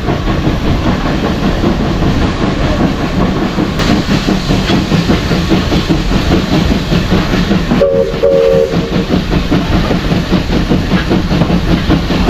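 Heritage steam train running along the line: a steady rumble and rattle of the carriages and wheels on the track, with a short two-note whistle blown twice in quick succession about eight seconds in.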